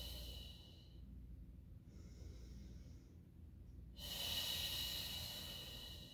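A woman's slow, deep breathing close to the microphone while holding a stretch: one long breath fading out about a second in, a fainter one between, and another long breath starting about four seconds in, each loud one with a thin whistle in it.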